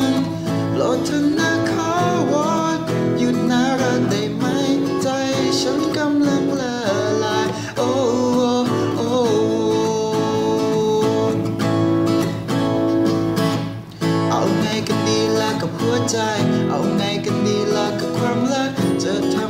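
A song's instrumental passage led by guitar over a full band accompaniment, with a wavering, gliding melody line.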